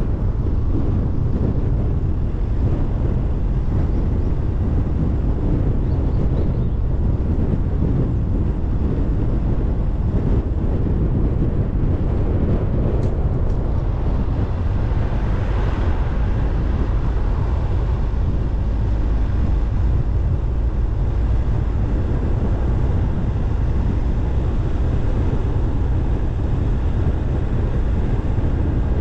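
A car driving slowly along a paved road, giving a steady low rumble of tyres and engine. A brief swell of hiss rises and fades about halfway through.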